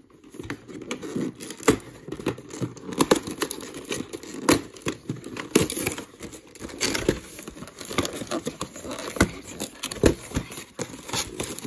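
Cardboard trading-card collection box and its plastic packaging being pulled open by hand: irregular crinkling, crackling and tearing with scattered sharp snaps.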